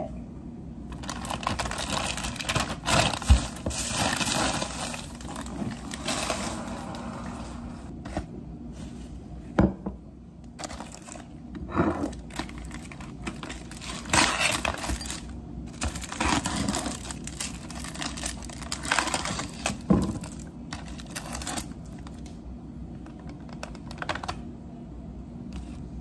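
Food-prep handling: a plastic salad container and plastic packaging crinkling and rustling, with a few sharp knocks and clinks of glass bowls and containers set down on the countertop.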